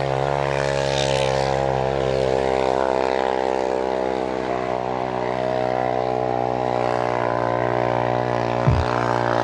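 Dirt bike engine idling steadily, with one brief low thump near the end.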